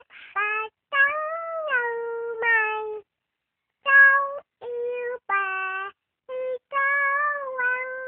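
A young girl singing a Vietnamese children's song unaccompanied in a high voice: short phrases of held notes, several sliding down in pitch, with brief silent breaks between them.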